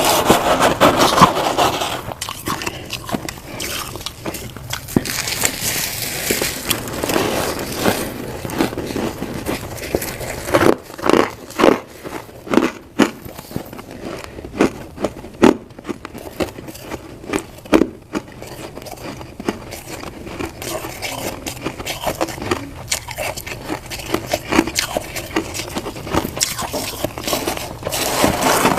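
Frost being bitten and chewed up close, with crackling and scraping. In the middle comes a run of sharp, separate crunches, about one or two a second, before it settles back into softer crackling.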